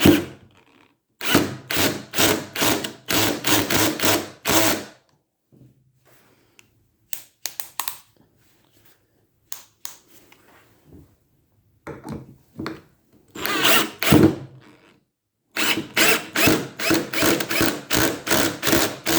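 Warrior 18-volt cordless drill driver drilling a hole in wood, running in runs of short, even pulses about three a second with pauses between the runs.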